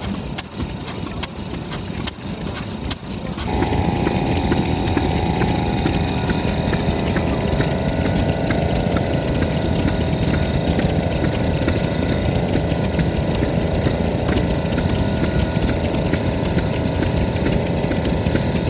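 Large Kubota FF-type 10 hp stationary engine running, with sharp knocks over the first few seconds. About three and a half seconds in, the sound becomes suddenly much louder and denser, with a steady tone over the running.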